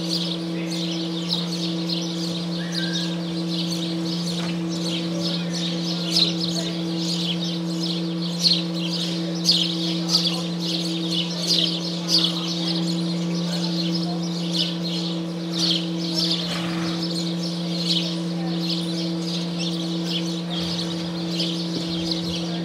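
Small birds chirping again and again, short high chirps scattered throughout, over a steady low hum.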